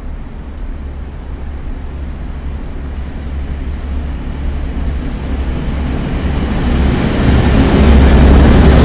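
Twin-engined V 200 diesel-hydraulic locomotive hauling a passenger train past: a deep engine rumble that grows steadily louder as it approaches and is loudest near the end as it goes by, with the coaches rolling behind it.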